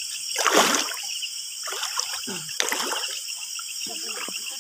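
Water splashing in a shallow stream: a loud splash about half a second in and a shorter one near three seconds, with trickling water between.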